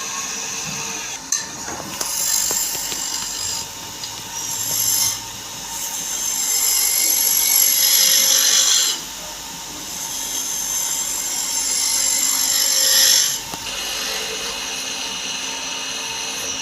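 Wood being worked by a power tool, a tool rubbing against the wood in three long passes that each grow louder and then stop abruptly.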